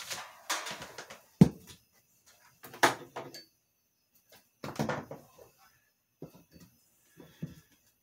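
Knocks, bumps and rustling as an old metal-framed box fan is handled and fitted into a window frame, with one sharp knock about a second and a half in as the loudest. The fan is not yet running.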